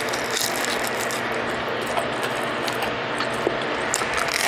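Close-up crunching and chewing of crispy deep-fried breaded trout, with many small crackling clicks as the crust breaks.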